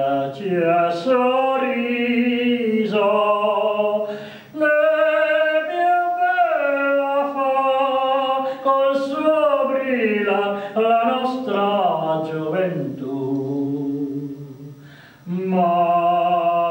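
A man singing an Italian song unaccompanied, holding long notes and sliding between them. He breaks off briefly twice, about four seconds in and near the end.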